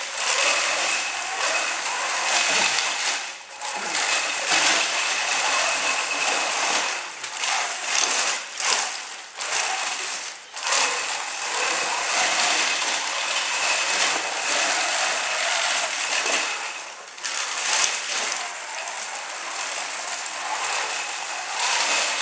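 Mecanum-wheel robot drivebase driving on carpet: its drive motors and gearboxes give a steady high whine over a busy mechanical rattle. It stops briefly a few times.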